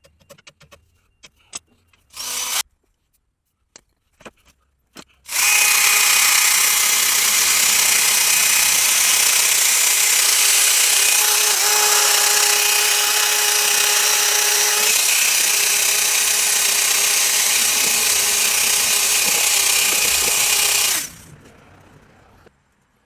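Impact wrench, a low-powered one, fastening the sway bar bushing bracket: a few clinks of metal tools and a short half-second burst from it, then about fifteen seconds of continuous running that stops abruptly.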